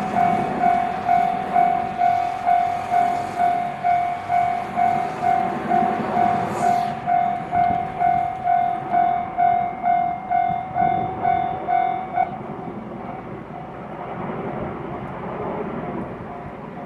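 Japanese railway level-crossing warning bell ringing in an even rapid rhythm, about two strokes a second, then stopping about twelve seconds in. A train's running rumble continues underneath and lingers after the bell stops.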